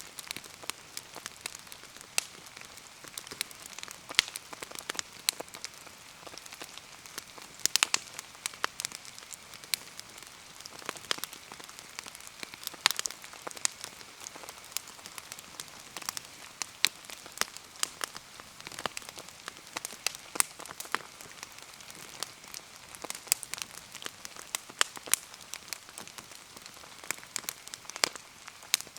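Steady rain falling, with a wood bonfire crackling and popping in irregular sharp clicks, a few louder pops about eight seconds in.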